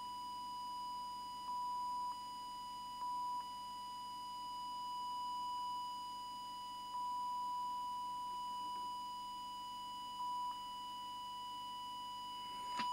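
Steady 1 kHz sine test tone from an audio test oscillator, feeding the CB transmitter so that its FM deviation can be set. The tone holds one pitch and gets briefly louder several times.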